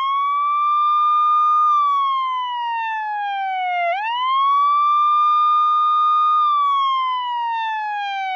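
Wailing siren sound effect: a single tone that rises quickly, holds briefly, then slides slowly down, twice, with a third rise starting near the end.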